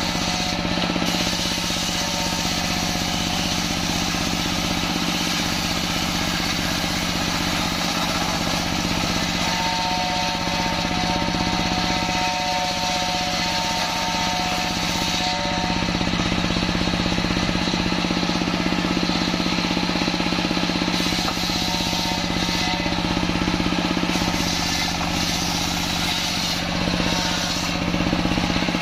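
Stationary diesel engine running steadily, driving a circular table saw whose blade is ripping boards of kembang kantil wood, a continuous loud machine drone.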